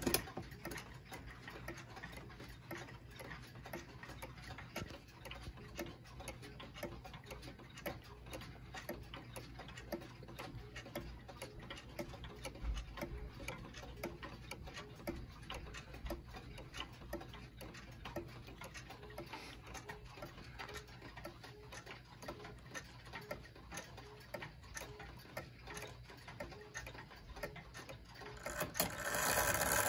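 Antique Japanese regulator wall clock's brass movement ticking steadily, the pendulum escapement beating evenly. Near the end a louder noise builds as a finger pushes the minute hand round.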